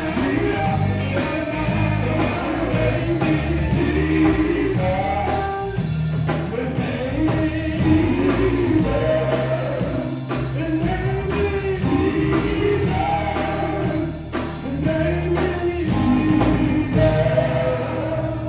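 A live gospel vocal group of male voices singing in harmony, backed by a band of keyboard, electric guitar, bass and drums.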